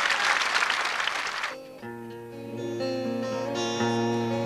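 A large crowd applauding, cut off abruptly about a second and a half in; then an acoustic guitar starts playing, chords ringing on.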